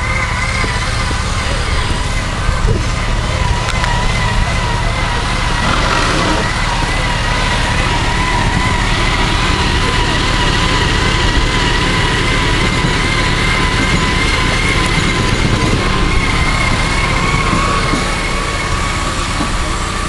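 Vehicle winch whining steadily, its pitch wavering slightly, as it hauls an off-road 4x4 up a muddy bank on a line anchored to a tree. The vehicle's engine runs low underneath.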